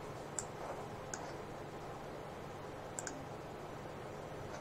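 Computer mouse clicking three times, a few short faint clicks, over a low steady room hiss.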